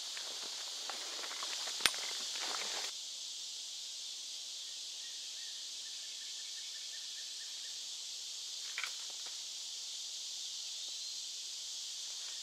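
Steady high insect chorus of summer woods. Footsteps crunch on a leaf-littered dirt trail for about the first three seconds, with one sharp click about two seconds in, then stop.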